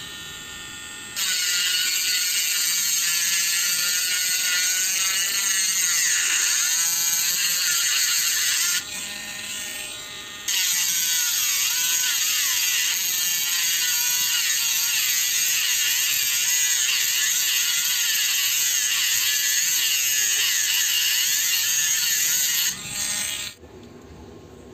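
Small handheld electric rotary tool grinding down a post on a diecast toy car's base to make it shorter. It gives a high motor whine whose pitch wavers as the bit works. It runs for about eight seconds, eases off for about two, runs again for about twelve, then winds down near the end.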